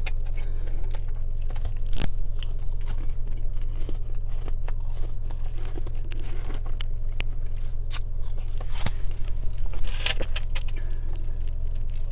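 Mouth chewing freezer frost and humidifier frost, with irregular crisp crunches of the soft ice, a few louder than the rest, over a steady low hum.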